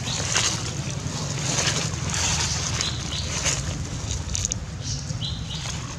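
Wind buffeting the microphone as a steady low rumble, with scattered rustling of dry leaf litter and a couple of short high chirps.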